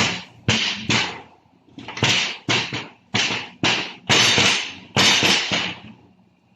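Compressed-air blow gun fired in about ten quick hissing blasts, the last two longer, used on the Hilux gearbox while its shift rods and detent spring and ball are being removed.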